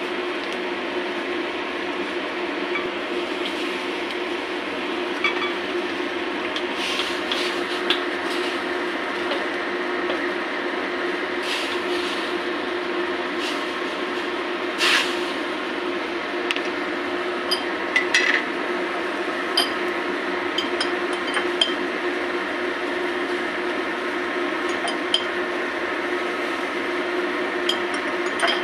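Liquid boiling in a steel wok around fish and scallions: a steady hiss and bubbling over a steady hum, with scattered small sharp clinks and pops, most of them in the middle of the stretch.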